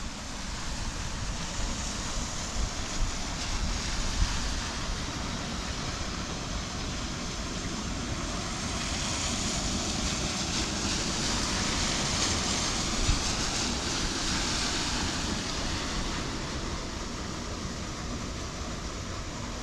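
Wind buffeting the microphone in gusts over a steady hiss of rain and water on a flooded road; the hiss grows louder for several seconds in the middle.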